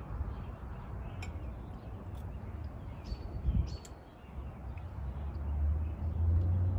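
Outdoor background ambience: a steady low rumble that swells near the end, with scattered short, high chirps and clicks.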